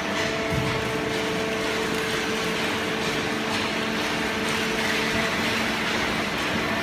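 Automatic cardboard baler running: a steady machine hum with several held tones over broad mechanical noise.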